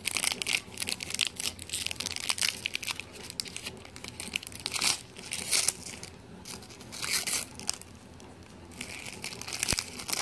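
Plastic wrapper of a trading-card relic pack crinkling and tearing as it is opened by hand: a run of irregular crackles, quieter for a couple of seconds past the middle, then picking up again near the end.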